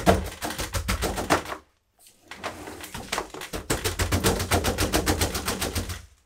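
Rapid knocking on a self-watering plant pot filled with mineral substrate, several knocks a second in two runs with a short break about two seconds in: the pot is being tapped to settle the granules and close small gaps around the roots.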